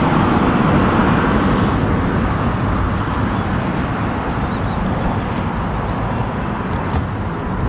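Wind buffeting a cap-mounted action camera's microphone: a steady noise that eases slightly toward the end.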